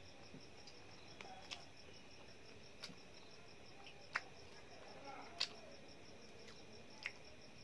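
Quiet sounds of eating rice by hand from a steel plate: a handful of short sharp clicks and smacks, the loudest about four and five and a half seconds in. Behind them runs a steady, fast-pulsing high-pitched chirping.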